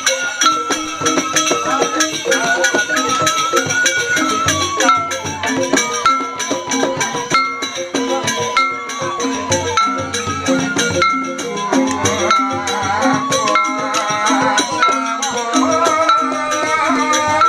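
Balinese rindik ensemble playing a lively koplo-style piece: bamboo xylophones struck with mallets in quick patterns, with a cymbal and percussion keeping a steady dance beat.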